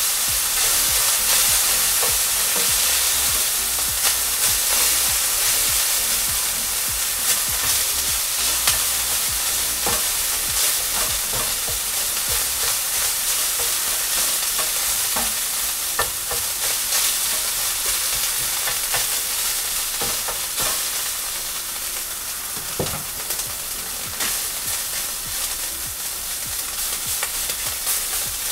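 Beef frying in a hot pan on a gas hob, a steady sizzling hiss, with occasional taps and scrapes of a utensil stirring the meat as it browns.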